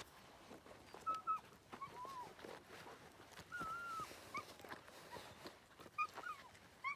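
A Slovakian Rough-haired Pointer puppy whining in a string of short, high whimpers that rise and fall, over faint rustling.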